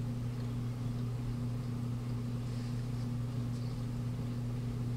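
Steady low electrical hum, holding one even pitch with a fainter tone an octave above.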